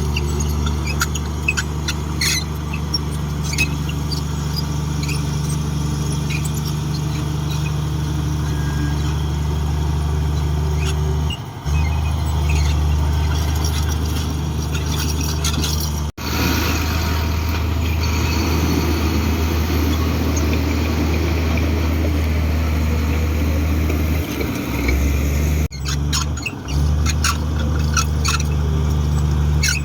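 Komatsu D58 crawler bulldozer's diesel engine running steadily under load, with scattered clanks and high squeaks over it. The sound breaks off abruptly about halfway through and again near the end, then carries on.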